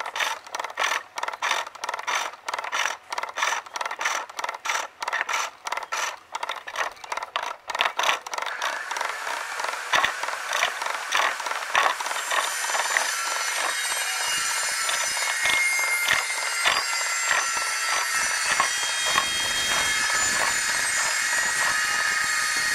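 A skew chisel cuts a spinning maple blank on a foot-powered pole lathe: quick, rhythmic scraping cuts with short gaps between strokes. From about eight seconds in, a steady hiss with high whining tones builds underneath and the cuts grow fainter.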